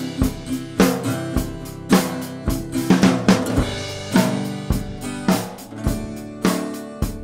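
Recorded acoustic drum kit playing a steady groove, bass drum and snare hitting about twice a second, with a Harmony parlour acoustic guitar strumming chords underneath.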